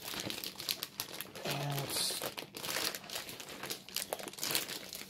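Clear plastic bag crinkling and rustling in irregular bursts as a laptop is slid out of it by hand.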